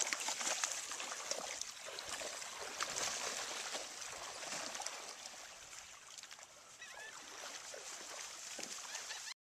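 Lake water lapping and splashing against shoreline rocks, a steady wash of small splashes and trickles that cuts off suddenly near the end.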